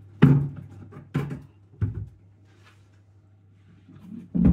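Groceries being handled and set down on a kitchen worktop: four sharp knocks and thuds, three in the first two seconds and the last near the end, over a steady low hum.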